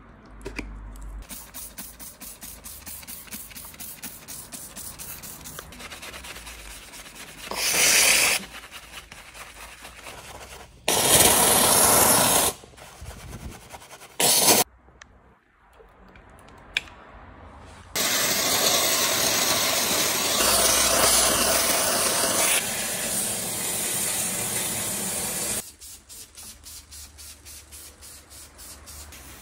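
Pressurised detailing spray hissing in several bursts while cleaning flood mud from the car body and headliner, the longest about seven seconds, with a fast mechanical ticking before and after.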